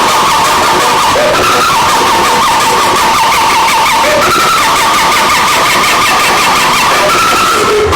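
A large sound-system speaker stack playing loud, distorted audio: a squealing tone that holds and steps up and down in pitch every second or so, like a tyre-screech effect, over a constant hiss.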